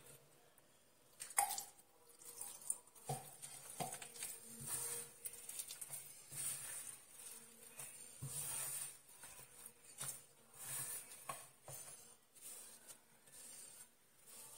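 Hand working flour, egg and water into a crumbly dough in a glazed earthenware dish: faint, irregular patting, squishing and rustling.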